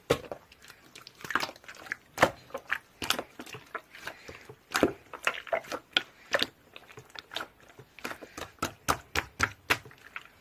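Irregular series of short, sharp clicks and taps, a few a second.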